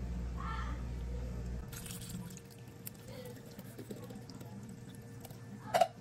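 Faint dripping and trickling of liquid. A low steady hum stops about a couple of seconds in, and there is a short knock near the end.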